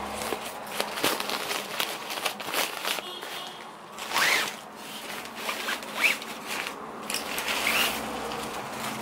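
Rustling and crackling of a black fishing-rod bag being untied and its sleeve slid off a rod, with three louder swishes in the second half as the sleeve is pulled along the rod.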